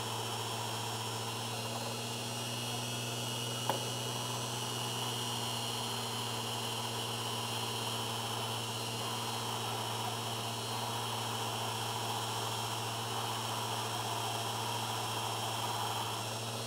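Unimat 3 lathe running with a steady motor hum and hiss while a center drill is fed gently into a spinning cast-iron piston blank. A single short click about four seconds in.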